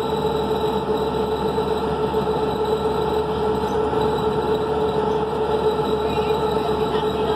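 SEPTA New Flyer D40LF diesel transit bus heard from inside the cabin while cruising at speed: a steady drivetrain drone with a strong constant whine over road and tyre noise.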